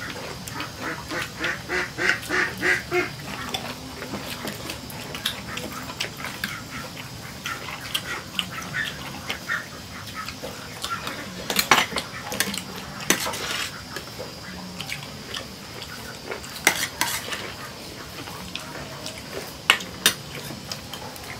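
Spoons and porcelain plates and bowls clinking and scraping as people eat at a table, with sharp clinks scattered through. In the first few seconds there is a quick, evenly pulsed run of calls, about four or five a second.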